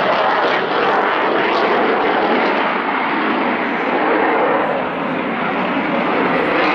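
Aircraft flying overhead: a loud, steady rushing engine noise with no clear pitched note.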